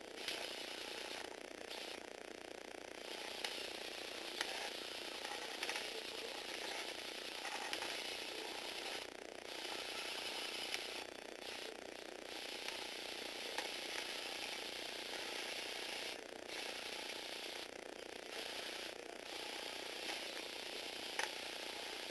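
Electric motor driving the plastic gear train and leg linkages of a four-legged Lego Technic walking robot. It gives a steady whirring grind, broken now and then by sharp clicks.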